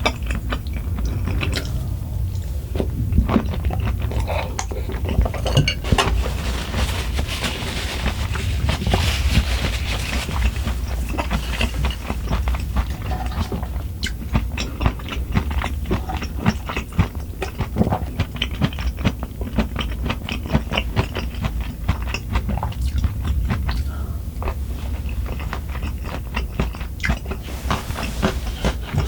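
Close-miked chewing and biting of food, with many irregular crisp crunching clicks.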